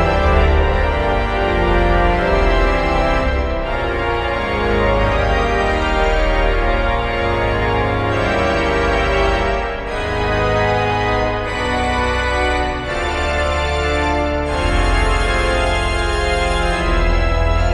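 The four-manual, 81-rank Quimby pipe organ plays loud, sustained full chords over a deep pedal bass. The chords shift every second or so, with a few brief breaks between phrases.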